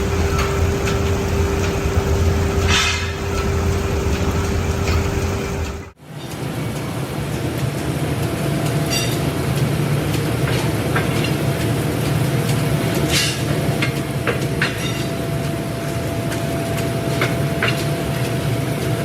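Factory machinery in leaf-spring production running steadily with a low hum and a constant whine, with scattered metal clinks and knocks. The sound changes abruptly about six seconds in, the whine dropping away and a higher steady tone coming in a little later.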